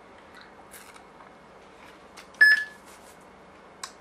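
A single short electronic beep about two and a half seconds in, with a few faint clicks around it.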